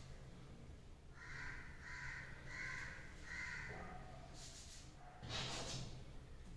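A crow cawing four times in quick, even succession, followed about five seconds in by chalk scratching on a blackboard.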